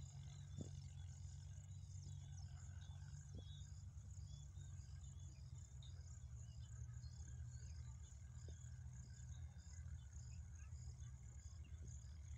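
Faint insects chirping in an even, repeating high-pitched pulse, over a steady low rumble.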